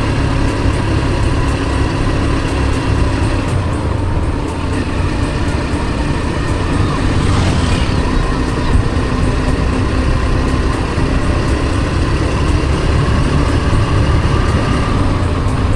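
Steady engine and road noise of a moving motor vehicle, a constant low rumble.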